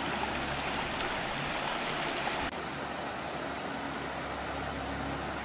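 Stream water rushing steadily, an even hiss of flowing water; the rush changes abruptly about halfway through.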